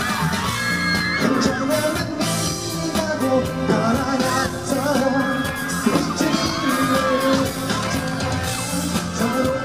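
Live K-pop concert music: singing over a loud amplified backing track with a steady beat, and fans yelling.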